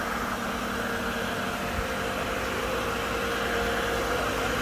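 Diesel engine of a truck-mounted 30-metre concrete pump running steadily, with a constant hum.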